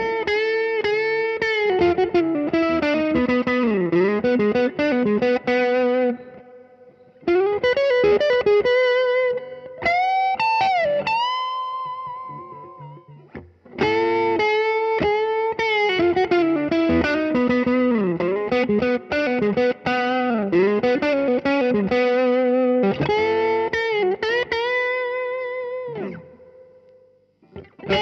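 Overdriven electric guitar soloing: a 2010 Gibson SG Standard fitted with a Halon tailpiece, played through an Analogman Tube Screamer into a Fender Super Champ amp. A lead phrase with string bends and long held notes is played in three passes, with brief breaks about 6 and 13 seconds in.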